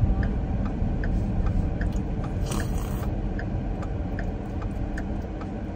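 Car turn-signal indicator ticking steadily, about two and a half ticks a second, over the low rumble inside the car's cabin, with a brief rustle about two and a half seconds in.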